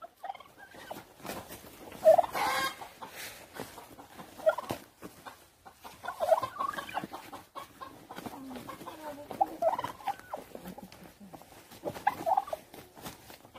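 Domestic fowl clucking: short calls come every second or two, with the loudest about two seconds in. Scuffling and rustling between the calls come from turkeys mating and jostling on bare dirt.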